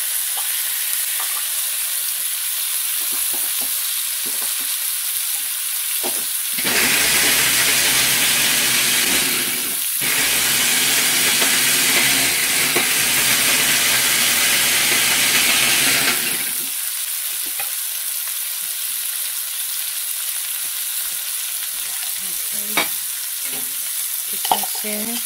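Rice and vermicelli noodles sizzling as they brown in hot beef shortening in a stainless steel pan, stirred and scraped with a slotted metal spatula. For about ten seconds in the middle, a louder steady rushing noise with a low hum joins the sizzle. It breaks off briefly near its middle. A few sharp metal clicks of the spatula on the pan come near the end.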